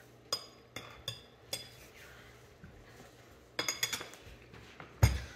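Metal fork clinking and scraping against ceramic plates as pancakes are cut: a few separate sharp clinks in the first second and a half, a quick run of clinks about three and a half seconds in, and a heavier knock just before the end.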